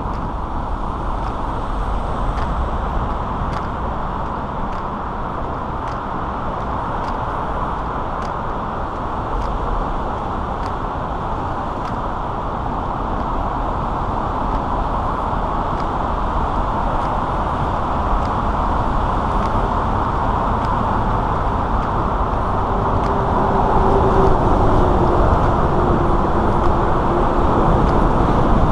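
Steady road traffic noise from the highway and bridge, a continuous rumble of passing cars, growing a little louder near the end.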